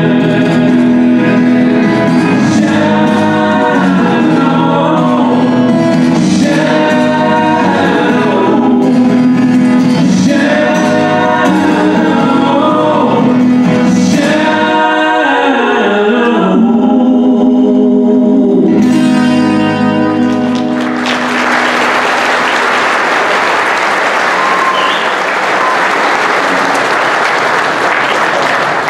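A man singing with his own acoustic guitar. The song ends on a held note about 20 seconds in, and the audience applauds for the rest of the time.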